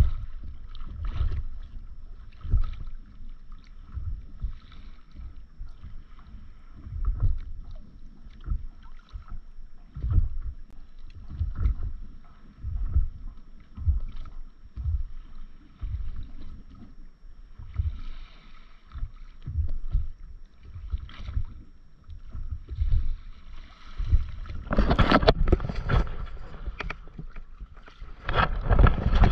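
Choppy sea water slapping and lapping against a stand-up paddleboard in irregular low thumps, with wind on the microphone. Near the end the splashing and rushing grow much louder.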